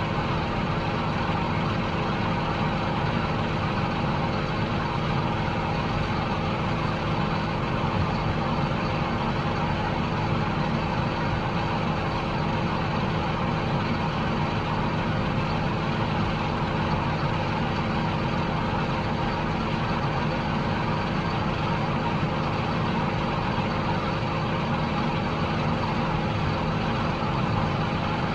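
Heavy diesel harvest machinery running steadily under working load, a constant drone with several steady whining tones layered over it.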